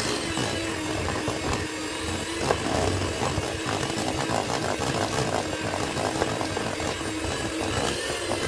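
Electric hand mixer running steadily, its twin beaters whisking butter and icing sugar into buttercream, with a steady whir and many small clicks as the beaters knock the bowl.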